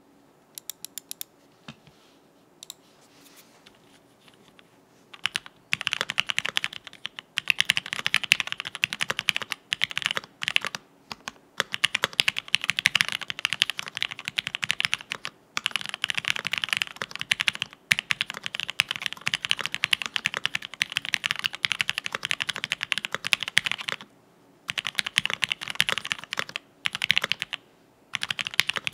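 Typing on a TX65 polycarbonate-case mechanical keyboard with lubed Gateron Cream linear switches on an FR4 plate and PBT keycaps, a 'creamy' key sound. A few single key presses come first, then runs of fast typing broken by short pauses.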